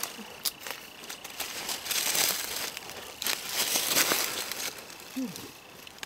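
Dry fallen leaves and twigs rustling and crackling in irregular bursts as the forest-floor leaf litter is disturbed.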